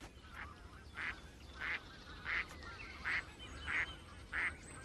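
Waterfowl calling: a string of about seven short calls, evenly spaced at roughly one every two-thirds of a second, over a low steady rumble.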